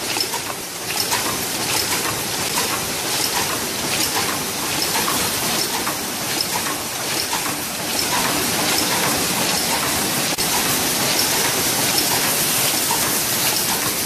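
AHD-50 paper cup forming machine running at production speed: a steady mechanical clatter of its rotary turrets and forming stations, with regular clicks over a hiss.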